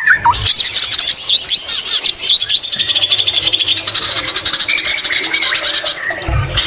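White-rumped shama (murai batu) singing loud and fast: quick rising and falling whistles, a rapid rattling trill about three seconds in, then a held whistle. Its song is loaded with phrases copied from the greater green leafbird (cucak ijo).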